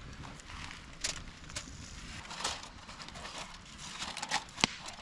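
Campfire crackling, with irregular sharp pops and snaps and short hisses; one louder pop a little before the end.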